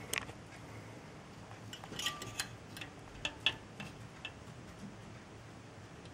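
Irregular light clicks and ticks, about a dozen, bunched in the middle, over a faint steady low hum.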